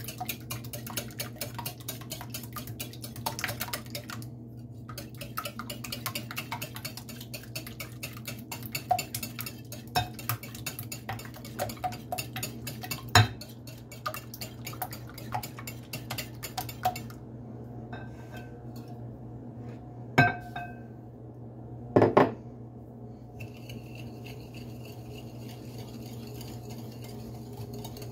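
Eggs being beaten by hand in a glass bowl: a utensil clicks rapidly against the glass, thinning out after about 17 seconds into a few loud single clinks. A steady low hum runs underneath.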